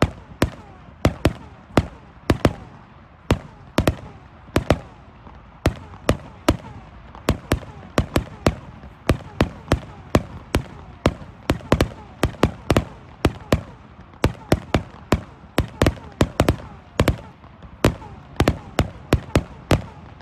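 1.3G display fireworks going off in a rapid, uneven string of sharp bangs, about two to three a second, each with a short echoing tail.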